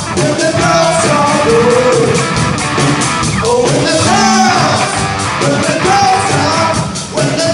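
Live amplified rock band: a male singer over electric guitar and drums, singing and playing a rock and roll song through the PA.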